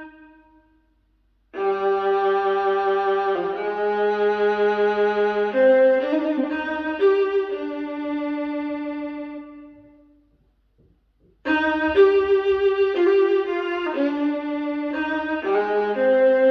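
Recorded classical string music led by violin: bowed notes with vibrato in two parts, played in phrases with a brief pause about ten seconds in before the next phrase begins.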